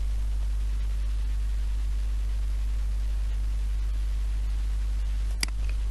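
Steady low electrical hum with a faint hiss, and a single click near the end.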